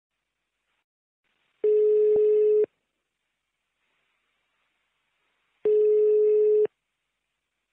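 Phone ringback tone of an outgoing call waiting to be answered: a steady mid-pitched tone rings twice, each ring about a second long, about four seconds apart.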